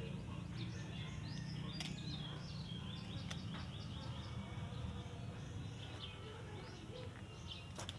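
Small birds chirping over and over in short high notes above a steady low hum, with a couple of faint clicks.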